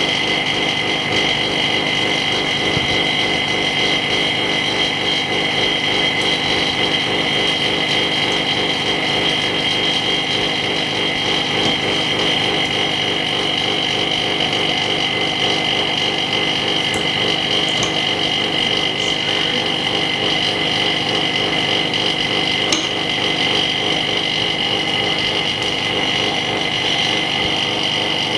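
A small machine running steadily, with a high whine of two held tones over a fast, even pulsing.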